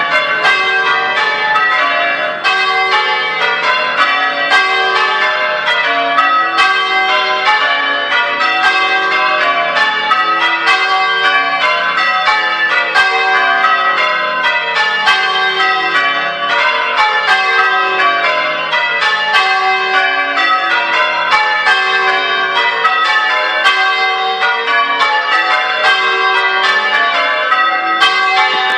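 Church tower bells ringing a continuous, evenly paced stream of strikes, one bell after another in turn, in the manner of English change ringing.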